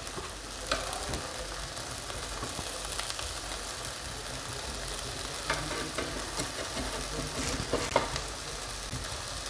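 Diced onions and spices sizzling steadily in butter in a nonstick frying pan, while a plastic spatula stirs them, with a few short clicks of the spatula against the pan.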